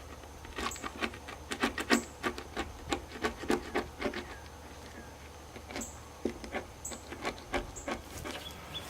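Stiff plastic scraper scraping old, failed sealant off an RV's side-camera mounting surface in quick short strokes, about four a second, with a short pause in the middle.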